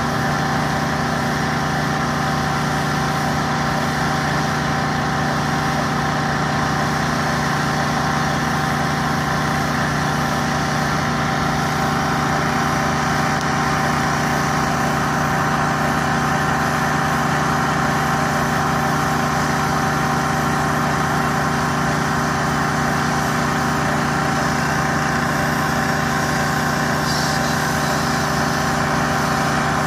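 Small engine of a petrol pressure washer running steadily at a constant speed, with an unchanging hum.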